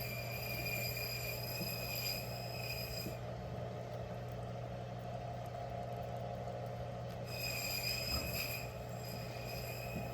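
A steady low machine hum with a high-pitched whine on top; the whine stops about three seconds in and comes back about seven seconds in.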